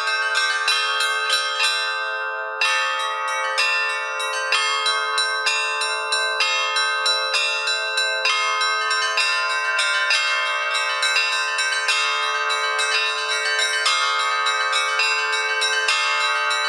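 Bells struck in quick, even succession, about three or four strikes a second, their tones ringing on and overlapping.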